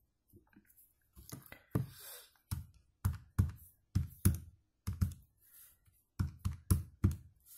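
Buttons of a Casio fx-100MS scientific calculator being pressed one after another: a run of a dozen or more dull plastic taps and clicks at an uneven pace, some in quick pairs, as a number is keyed in.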